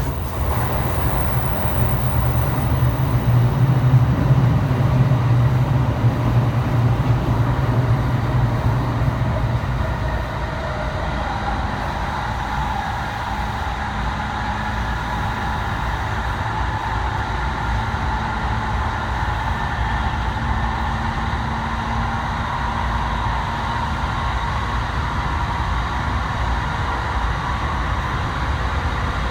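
Running noise of a JR E217-series electric commuter train heard from inside the carriage: a steady rumble, louder for the first ten seconds or so, with faint steady whining tones over it.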